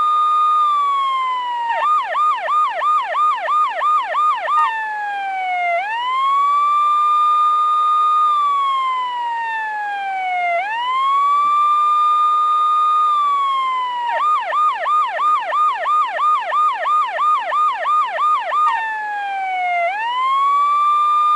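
Electronic police siren alternating between a slow wail, rising, holding and falling over about four seconds per cycle, and a fast yelp of about three sweeps a second. The yelp comes twice: about two seconds in for a few seconds, and again past the middle for about five seconds.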